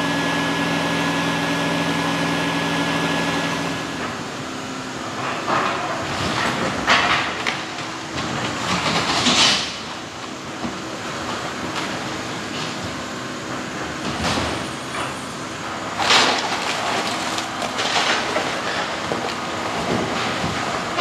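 A vacuum motor hums steadily for about the first four seconds, drawing bees through a hose into a bee box. Then an excavator's engine runs while its bucket tears into a house's roof, with irregular crashes and crunching of breaking timbers and debris.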